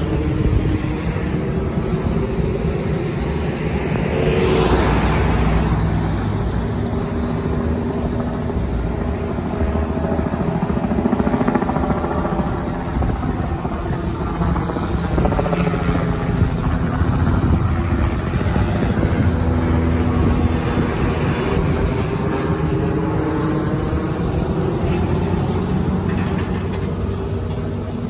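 Police helicopter circling overhead, a steady rotor and engine drone that slowly shifts in pitch. Passing street traffic swells about five seconds in.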